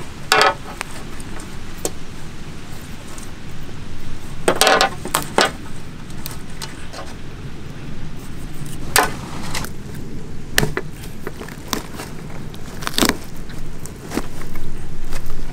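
Kitchen knife knocking and scraping against a steel plate while cutting up plucked guinea fowl: a handful of sharp metallic clinks, some with a short ring, spread out with gaps of a few seconds.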